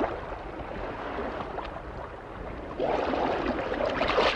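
Sea water sloshing at the surface, turning into loud churning splashes about three seconds in as a diver thrashes at the surface beside a boat.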